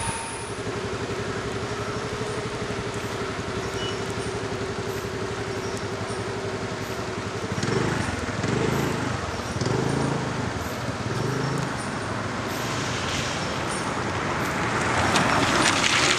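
Road traffic: car engines running slowly, with a steady hum through the first half, an uneven low rumble after that, and a hiss building up near the end as a vehicle comes close.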